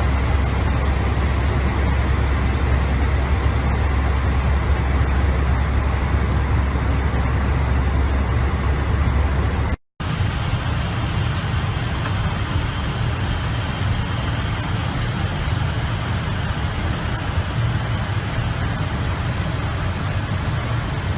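Steady rushing cockpit noise of an airliner cruising at high altitude, with a deep hum beneath it. It cuts out for a moment about ten seconds in, then resumes slightly less deep.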